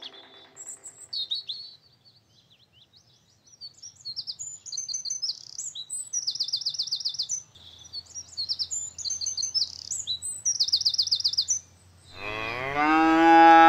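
Birds chirping and singing, with rapid trilling runs, then a cow moos once, loudly, near the end.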